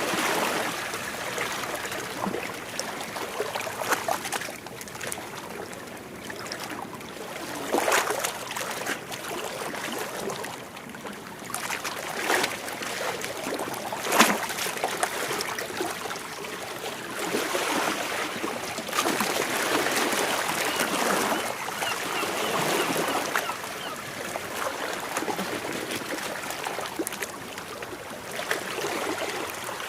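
Small waves washing against rocks, with irregular swells of splashing and sloshing water and a few sharp splashes, the sharpest about fourteen seconds in.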